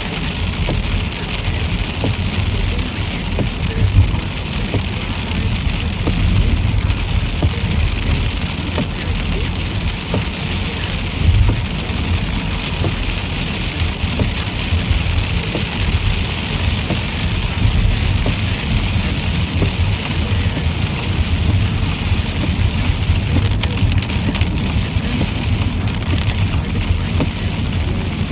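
Rain on a moving car heard from inside the cabin: a steady hiss of rain and wet tyres over the car's low road rumble, with a couple of louder bumps.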